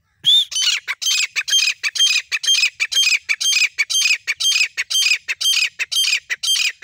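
Grey francolin calling: one loud shrill note, then a fast, even run of repeated shrill notes, about four a second.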